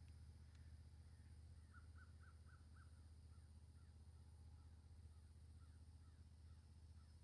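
A distant bird calling faintly in a quick run of short notes, about three or four a second, starting about two seconds in and lasting nearly to the end, over a low steady hum.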